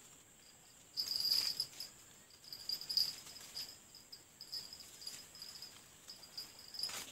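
Insects chirping in a high-pitched, pulsing chorus that swells about a second in and again about three seconds in.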